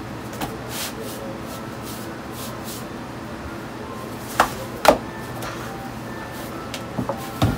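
Udon dough wound on a long wooden rolling pin being rolled and pressed on a wooden board, with soft rubbing and a few sharp wooden knocks: two about halfway through and a short cluster near the end. A steady hum runs underneath.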